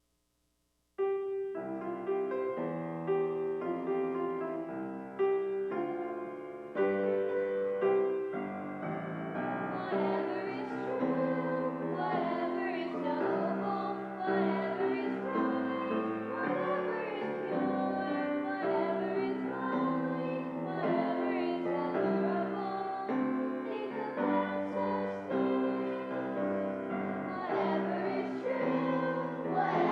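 A song with piano: a piano introduction starts about a second in, and from about nine seconds in voices sing along with the piano, children among them.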